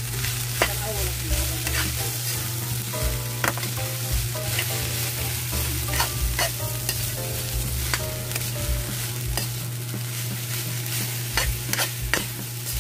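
Fried rice sizzling in a wok while a metal spatula stirs and tosses it, scraping and clinking against the pan at irregular intervals, over a steady low hum.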